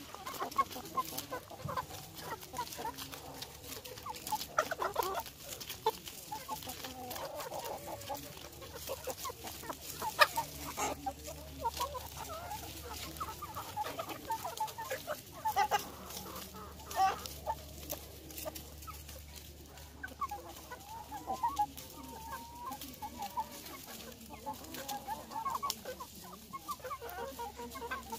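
A flock of Hmong mixed-breed chickens clucking steadily as they feed on lettuce, many short calls overlapping, with scattered small clicks among dry leaves.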